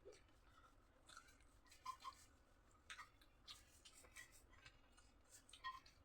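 Faint, irregular clicks and small smacks of someone eating: chewing and mouth sounds.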